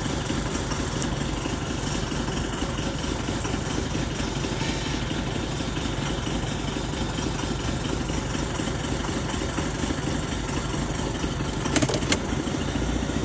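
Isuzu 4JX1 turbo-diesel engine idling roughly and surging, with two sharp clicks near the end.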